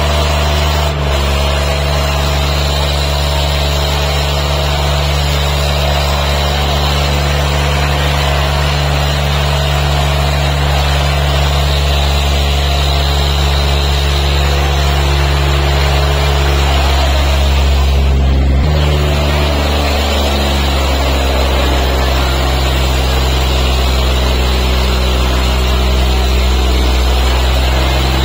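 Diesel tractor engines running hard under heavy load, as two tractors chained back to back pull against each other. A loud, steady engine note that shifts about two-thirds of the way through.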